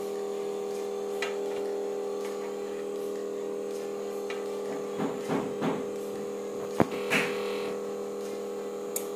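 Vacuum pump motor of a 946A touch-screen separator running with a steady hum, holding the machine's bed plate by suction. A few short knocks about five seconds in and a sharp click near seven seconds and near the end as the machine is handled.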